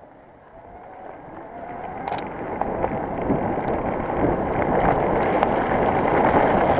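Wind rushing over the camera microphone and mountain-bike tyres rolling on a wet dirt trail, growing steadily louder as the bike picks up speed.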